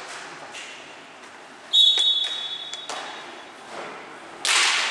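Referee's whistle: one shrill blast just under two seconds in, loudest at its start and then trailing off. Near the end a sudden loud burst of noise breaks in.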